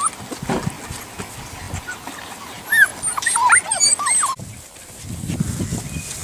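Golden retriever puppies whimpering and yipping: a cluster of short, high, rising-and-falling cries about three to four seconds in that cuts off suddenly. After that there is a softer low rustling.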